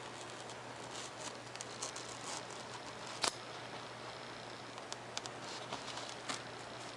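X-Acto hobby knife cutting freehand through a thin Depron foam sheet: faint, irregular small scratches and ticks, with one sharper click about three seconds in, over a steady low hum.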